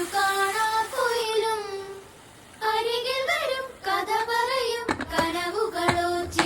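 Background song: a high voice singing a Malayalam melody, with a brief pause about two seconds in.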